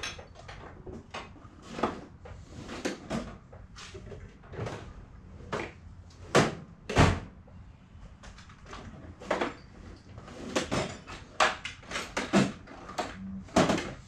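Irregular clicks, knocks and clatters of hand tools being picked up and handled, with the two loudest knocks about six and seven seconds in.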